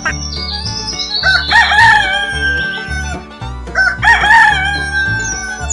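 A rooster crowing twice, each crow about two seconds long, over background music with a steady beat.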